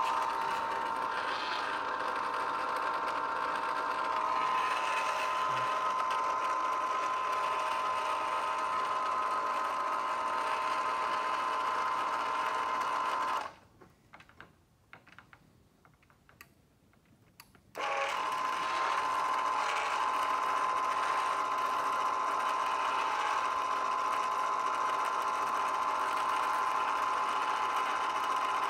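Hy-Gain CD-45II antenna rotator's motor and gear train running under the load of a five-band beam, giving a steady mechanical whine. About halfway through it stops for about four seconds, then starts again.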